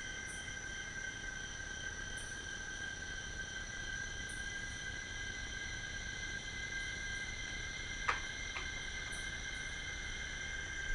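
Nightfall chorus of rainforest insects: several steady, unbroken high-pitched tones layered together, with a faint very high tick every couple of seconds. About eight seconds in, two short sharp clicks half a second apart.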